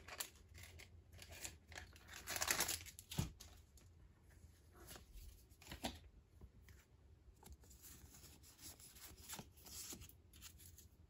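A Pokémon booster pack's foil wrapper being torn open and crinkled, loudest about two to three seconds in, followed by a few light ticks and faint rustling as the cards are handled.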